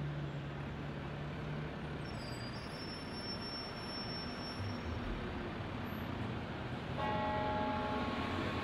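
Steady city traffic noise, a constant hum of road traffic. About seven seconds in, a held pitched tone with several notes layered together comes in over it.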